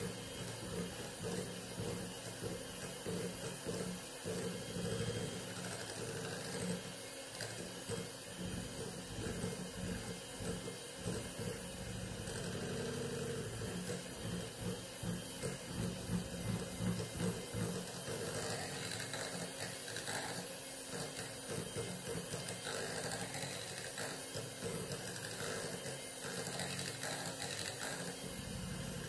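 Electric hand mixer running steadily, its twin wire beaters whisking a thick cheesecake mixture in a glass bowl.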